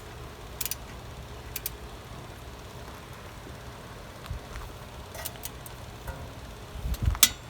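Click-type torque wrench being pulled slowly on a hub bearing bolt: a few scattered light ticks, then a sharp double click near the end as the wrench breaks over at its 74 ft-lb setting, the sign that the bolt has reached torque. A steady low hum runs underneath.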